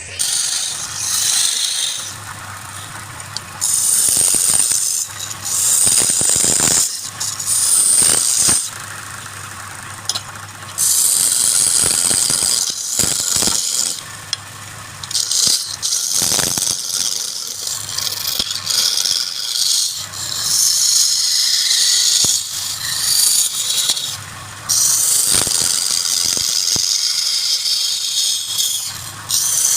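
Wood lathe running with a low steady hum while a turning tool cuts the spinning wood in repeated passes of one to two seconds each, giving a loud scraping hiss that stops and starts between passes.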